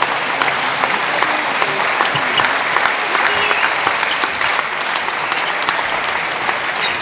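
Spectators clapping in a reverberant sports hall as applause for a point just won, with a steady dense patter of claps.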